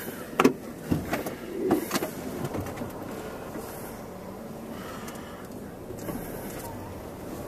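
A few sharp knocks and clunks in the first two seconds, then the steady running noise of a car.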